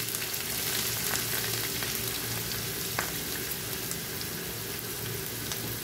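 Chopped onions, dried red chillies and curry leaves sizzling in hot oil and ghee in a nonstick kadai. It is a steady frying hiss with scattered faint crackles and one sharper click about three seconds in.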